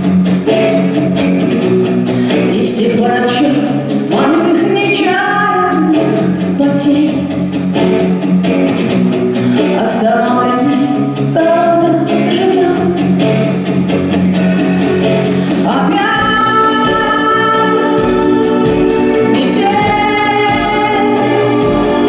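A woman singing a pop song live into a headset microphone over instrumental accompaniment. About two-thirds of the way through, the backing fills out with sustained higher tones and a low beat comes in.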